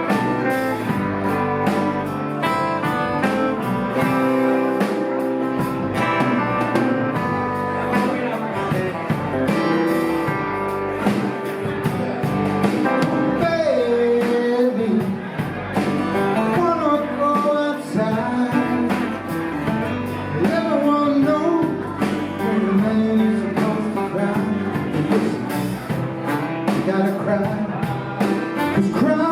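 A band playing a blues song with guitar. About halfway through, a lead melody with bending, wavering pitch comes in over the accompaniment.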